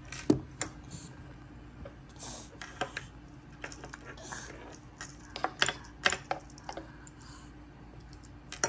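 A metal spoon tapping and clinking on a wooden tabletop and a bowl in scattered light clicks, the sharpest about a third of a second in.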